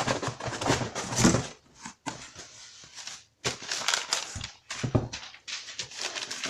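Packaging rustling and crinkling as it is handled and items are pulled out of it, with brief pauses around two and three seconds in.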